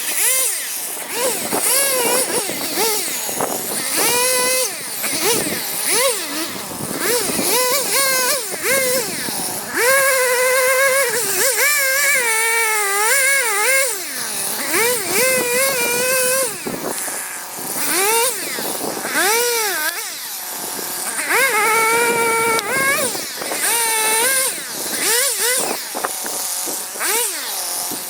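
Two-stroke chainsaw cutting a large yellow pine trunk. The engine note repeatedly sags as the chain loads up in the cut and climbs back as the load eases.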